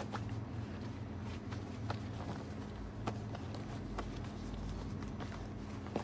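Clothes being rolled and pressed into a plastic storage basket: soft fabric handling with scattered light taps, over a steady low hum.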